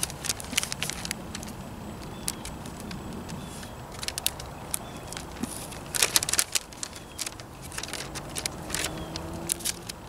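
Bible pages and loose paper notes rustling and crinkling as they are handled and turned, a scatter of sharp crackles that comes thickest about six seconds in and again near the end.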